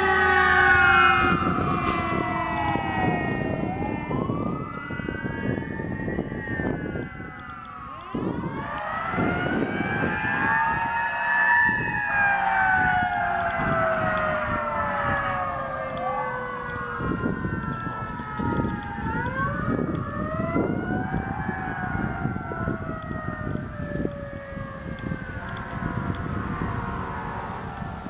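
Fire engine sirens wailing, several overlapping tones sweeping slowly up and down every few seconds, including the Federal Q mechanical siren. They grow gradually fainter as the engine drives away.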